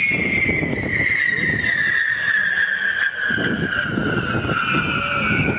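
Firework whistle: a long, shrill whistle sliding slowly down in pitch over the busy low rumble of the display, with a second whistle starting near the end.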